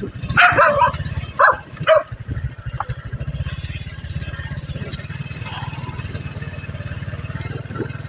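Motorcycle engine running steadily on the move, a continuous low pulsing throb. A dog barks a few times in the first two seconds, loud over the engine.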